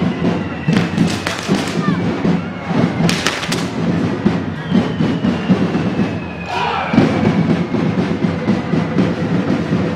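Fast, continuous drumming by a festival drum band, mixed with the hiss of firework fountains spraying sparks from a fire-beast figure. Short bursts of crackling come about a second and three seconds in, and a long falling whistle runs from the middle to about seven seconds.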